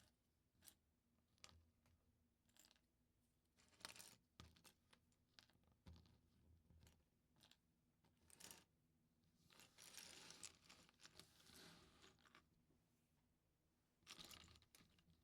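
Faint handling of plastic LEGO bricks: scattered clicks and taps as pieces are picked up and pressed together, with a longer stretch of rustling past the middle and a short one near the end.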